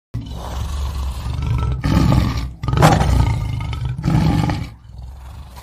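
Lion roaring: a series of loud, deep roars broken by short pauses, starting abruptly and tailing off quieter near the end.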